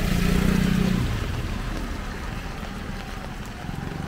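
A passenger van's engine and tyres on the wet road, fading away after about a second as it moves off. Quieter wet-street hiss of tyres and light rain follows.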